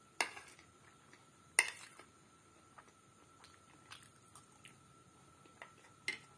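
Metal spoon clicking and scraping against a plate while scooping pasta: three sharp clicks, just after the start, at about a second and a half (the loudest) and near the end, with quiet chewing and small ticks between.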